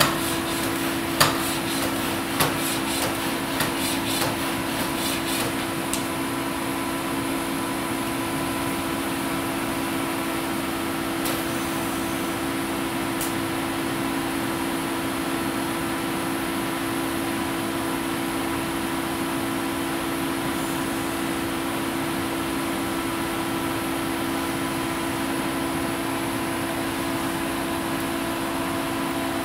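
Steady electrical hum and hiss, with several knocks about a second apart in the first few seconds as the TORO humanoid robot's feet set down on the floor while it steps.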